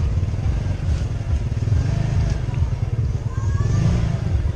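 Small step-through motorcycle engine running at low speed while riding along, heard as a steady, uneven low rumble on a helmet-mounted microphone.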